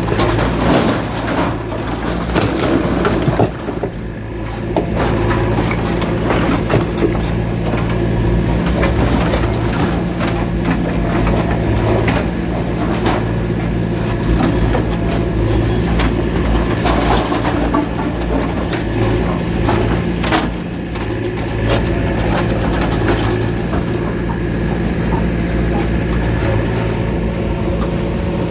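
Diesel engine of a demolition bulldozer running steadily, with scattered knocks and clatter over it.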